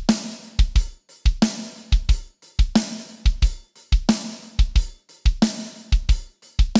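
Virtual drummer playing a sampled acoustic drum kit in a steady groove of kick drum, snare, hi-hat and cymbals, with a snare hit about every second and a third.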